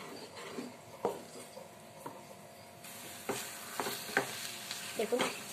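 A spatula stirring and scraping a thick khoya mixture of milk, milk powder and ghee in a metal kadai. From about three seconds in, a steady sizzle of ghee joins several sharp scrapes, as the mass cooks down and dries.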